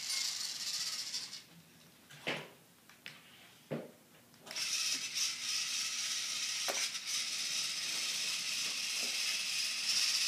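VEX IQ robot's motors and plastic gears whirring as it drives. The whir drops away after about a second, leaving a few sharp clicks, then comes back as a steady whir through the second half.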